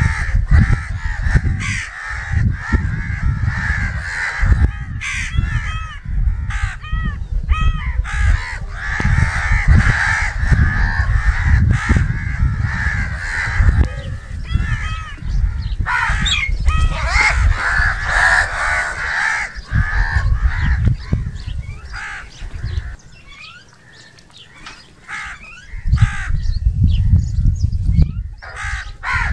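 A flock of crows cawing, many harsh calls repeating and overlapping at once. A low rumble runs underneath, dropping away for a few seconds near the three-quarter mark before coming back.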